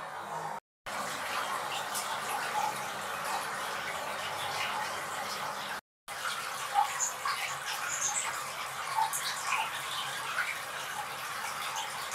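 Steady rushing, water-like hiss with a few faint short chirps over it in the second half. It cuts out briefly twice.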